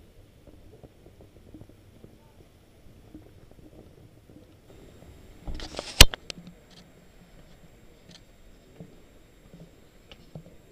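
A brief rustle and then a single sharp, loud click about six seconds in, over a faint low rumble; a few much fainter ticks follow.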